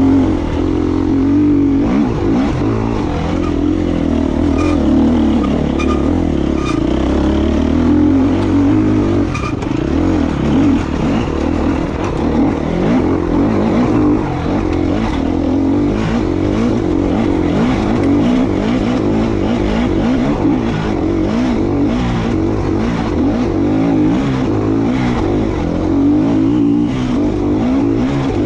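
KTM EXC 250F enduro bike's single-cylinder four-stroke engine running hard, its pitch rising and falling as the throttle opens and closes, with a few sharp clicks in the first third.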